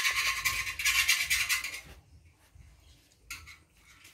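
A puppy and a kitten lapping milk from a plastic tub: fast wet clicking that stops about halfway through, followed by a few faint clicks.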